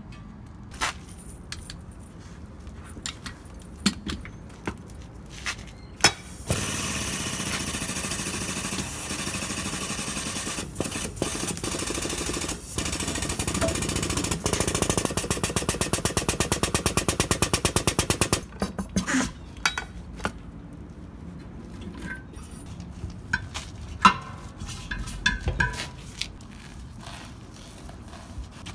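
An air-powered hydraulic bead breaker runs for about twelve seconds as it forces the bead of a 20.5-25 loader tire off the rim. It makes a loud, steady hiss that turns into a fast, even pulsing and then cuts off suddenly. Scattered metal knocks and clanks of tire tools come before and after, with one sharp knock near the end.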